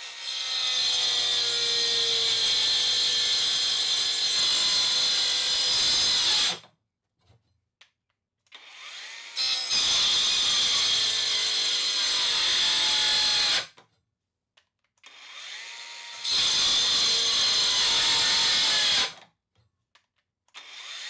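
Cheap cordless angle grinder fitted with a toothed saw blade cutting into a wooden 2x4 three times. Each time the motor spins up, runs loud with a high whine and the hiss of the blade in the wood for a few seconds, then cuts off suddenly: the grinder stalling under load and shutting itself down.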